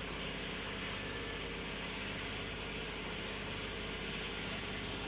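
A steady machine hum with a continuous hiss over it that swells and dips now and then.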